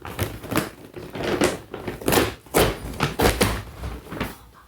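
A doll's cardboard-and-plastic box being pulled and torn open by hand: an irregular run of crackles, rips and knocks.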